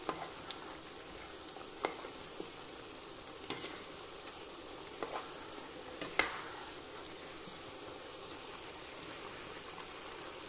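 Thick tamarind paste (puli kaichal) bubbling and sizzling in oil in an iron kadai, stirred with a metal ladle. The ladle clicks against the pan about five times in the first six seconds, then only the steady sizzle goes on.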